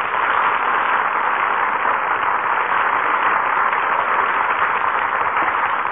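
Studio audience applauding: a dense, steady clatter of many hands clapping, following the end of an orchestra number. It thins out near the end.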